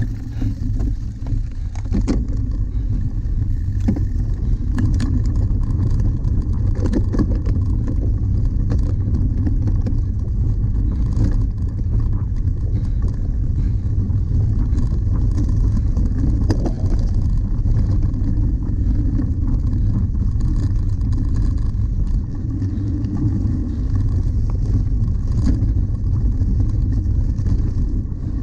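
Wind rumbling steadily on the microphone of a camera riding on a cyclocross bike, with scattered knocks and rattles as the bike runs over bumpy grass.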